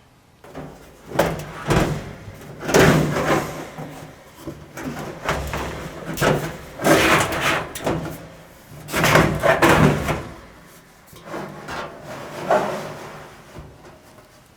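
Dryer drum being pushed, pulled and twisted out through the front of the cabinet, scraping and knocking against the frame in a series of bursts of about a second each.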